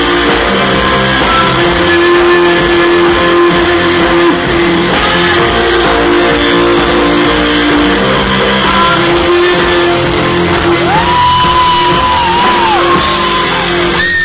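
Live rock band playing loudly in a large hall: electric guitars, bass and drums, with some sung vocals. About eleven seconds in, a high note bends upward and is held with a slight waver.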